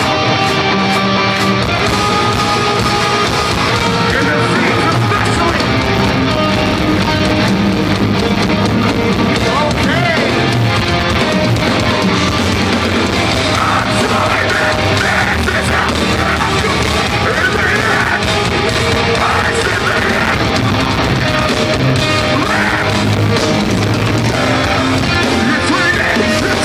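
Live metalcore band playing loud: distorted electric guitars and drums, with shouted vocals, heard through a phone's microphone in the crowd.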